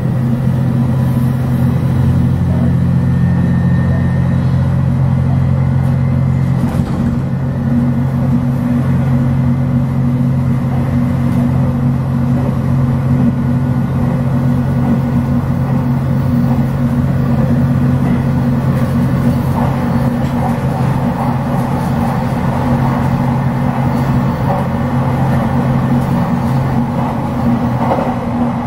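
Diesel railcar of a JR Shikoku limited express running at speed, heard from inside the driver's cab: a steady low engine drone under the clatter and rush of wheels on rail. About seven seconds in, part of the engine note drops away, and the rail noise grows louder in the second half.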